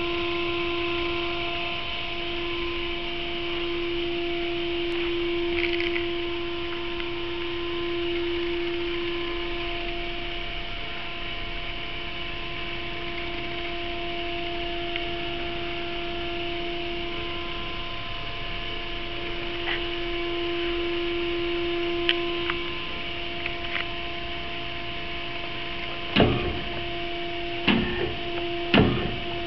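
George CY350 hydraulic semi-automatic band saw running: a steady machine hum with a constant pitched tone and a hiss above it. Several sharp knocks come in the last few seconds.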